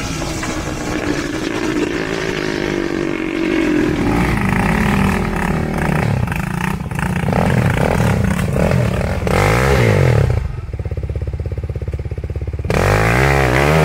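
Quad bike (ATV) engines running and revving on rough off-road ground, the pitch rising and falling over and over as throttles are worked. For a couple of seconds near the end an engine runs at a quieter, steady, even putter before the revving resumes.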